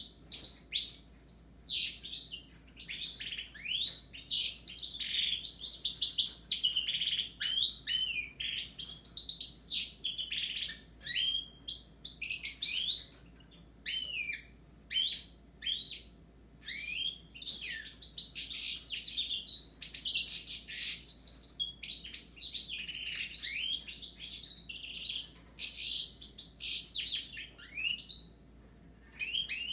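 Caged European goldfinches and canaries singing together: fast, twittering phrases of trills and quick rising and falling notes, broken by short pauses.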